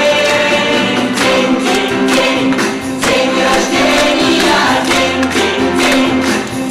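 Music: singing voices over a steady percussion beat.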